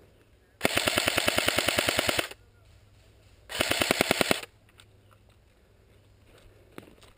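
Airsoft electric rifle, a CYMA M14, firing two full-auto bursts close by, each a rapid even rattle of about a dozen shots a second. The first burst lasts under two seconds and the second, shorter one starts about a second after it.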